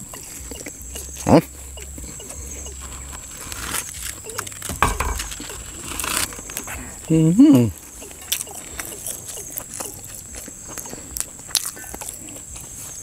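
A man chewing a mouthful of sticky rice and raw koi salad, with wet mouth clicks and smacks throughout. A short rising 'mm' comes about a second in, and a longer wavering hum of appreciation about seven seconds in.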